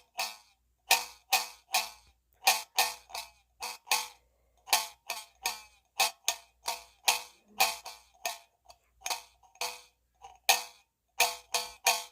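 A metal can struck over and over in an uneven rhythm, about two or three hits a second, each hit giving a short metallic ring at the same few pitches.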